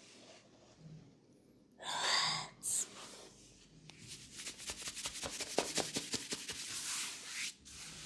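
A short, loud breathy whoosh like an exhale about two seconds in. Then a few seconds of dense, scratchy crackling as the masseuse's hands rub over the man's jaw, beard and neck.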